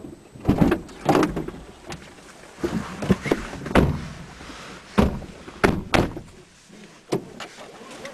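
Car doors opening and slamming shut, with about nine thuds and rustling as several people clamber into the car's seats.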